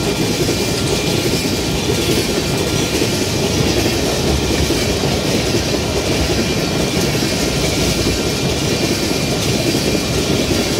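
Freight train of tank cars rolling past close by: a steady rumble and clatter of steel wheels on the rails, with a faint thin high squeal above it.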